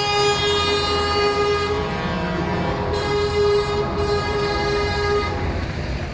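Truck air horn sounding a long steady note that breaks into short repeated blasts and stops about five seconds in, over a low engine rumble.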